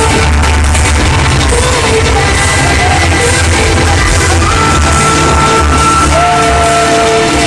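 Loud trance music played over a festival sound system, with a heavy bass beat and long held synth notes, and the crowd yelling over it.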